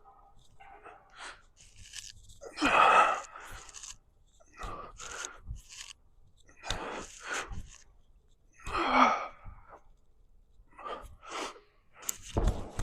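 A man's forceful, breathy exhalations and grunts of effort during a set of pull-ups, one with each rep, about every two seconds, six in all.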